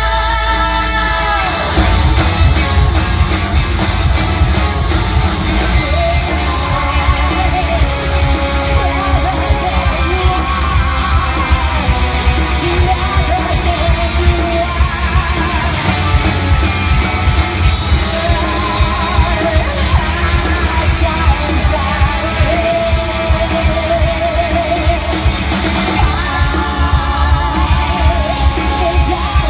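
Live rock band playing loud, with electric guitar, drums and a singer. The full band with drums comes in about two seconds in.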